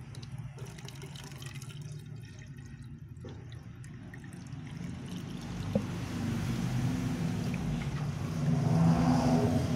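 Water pouring from a plastic jug into a jet pump's pipe to prime it, over a steady low hum that grows louder through the second half.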